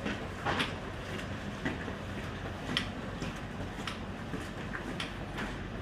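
Street ambience: a steady hiss with scattered light knocks and clicks, about one a second.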